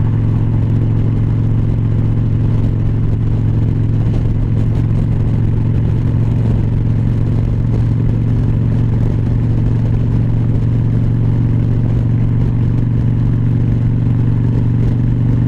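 Harley-Davidson Dyna Wide Glide's air-cooled V-twin engine running steadily at highway cruising speed, holding one even, unchanging engine note, with wind rushing over the bike.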